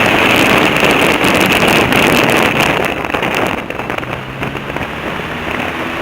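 Airboat's engine and air propeller running loud, with wind buffeting the microphone; the noise eases somewhat about halfway through.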